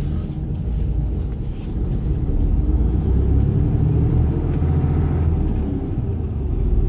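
Mercedes-Benz Actros truck's diesel engine running as the truck drives, a steady low drone that grows a little louder about two seconds in.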